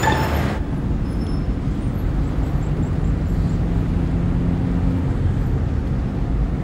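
Steady low rumble of a car driving, heard from inside the cabin: engine and road noise. A brief tail of music ends about half a second in.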